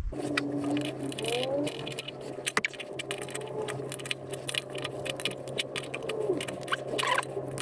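Metal clicks and rattles of a fitting being screwed onto the air compressor tank's outlet and tightened with an adjustable spanner, over a low steady hum.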